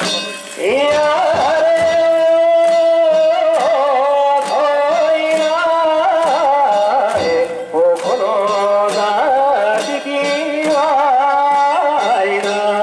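Danjiri festival music: a long, wavering melody of held notes over evenly spaced percussion strikes.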